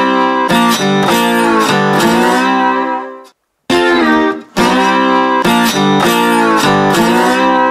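Background music led by guitar, which fades out about three seconds in, drops to a moment of silence, and starts again.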